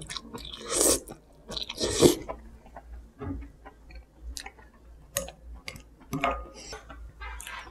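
A person slurping konjac noodles from cold broth, with two noisy slurps in the first two seconds or so, then chewing them with scattered soft wet mouth clicks.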